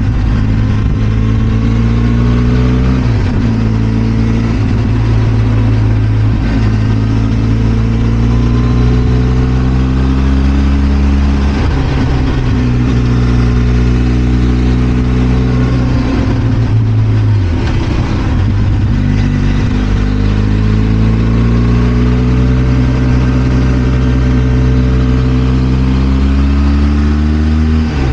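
Benelli TRK 502 X's 500 cc parallel-twin engine under way. The revs climb steadily and then drop back several times as the rider changes gear and works the throttle, with wind and road noise throughout.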